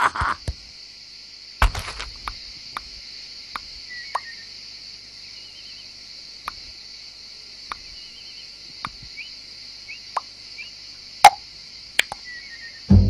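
Cartoon sound effects: a soft thud, then single small plops and clicks about a second apart, with one sharper click near the end, over a steady high hiss.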